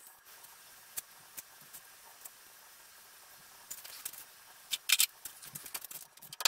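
Faint room hiss with scattered small clicks, then metal parts and tools clattering as they are handled, with two sharp knocks about five seconds in.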